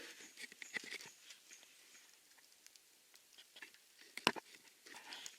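Wood campfire crackling with scattered small pops, with a sharp louder pop about four seconds in and another at the very end.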